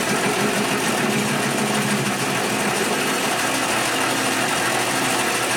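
Metal lathe running with its chuck spinning: a steady machine hum and whine that holds level throughout.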